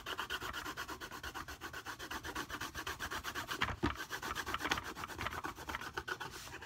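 Colored pencil scratching on paper in quick, even back-and-forth shading strokes, about eight a second.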